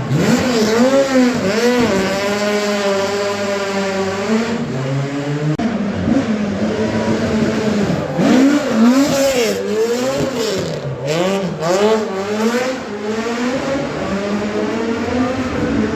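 Rally car engine revving hard, its pitch swinging up and down over and over as the throttle is blipped and released. A run of sharp cracks comes from it about two thirds of the way through.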